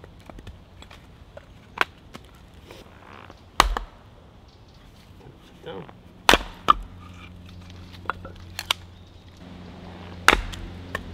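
Hatchet chopping and splitting a log on a wooden chopping block: a series of sharp wooden knocks a second or more apart, with a quick pair about six seconds in.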